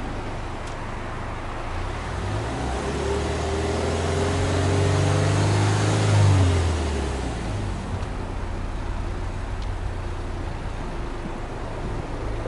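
Subaru Impreza S-GT's turbocharged 2.0-litre EJ20 flat-four, heard at the tailpipe. It is idling, then is free-revved in one slow rise from about two seconds in, held near its peak around six seconds, and drops back to a steady idle about eight seconds in.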